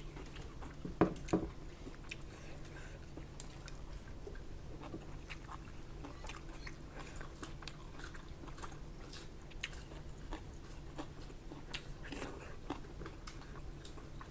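A person chewing a mouthful of rice and pork, with close, wet mouth sounds and many small clicks, and fingers gathering rice on a plate. Two sharper clicks come about a second in.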